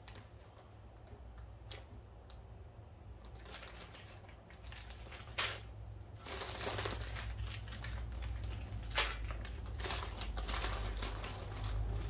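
Small steel hardware, bolts, washers and nuts, being handled and clinking together, with rustling and a few sharp clicks that grow busier and louder from about a third of the way in, over a steady low hum.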